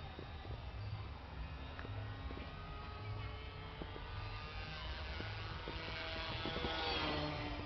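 Small electric RC airplane in flight: its brushless motor and propeller make a steady buzzing whine that grows louder and shifts in pitch toward the end.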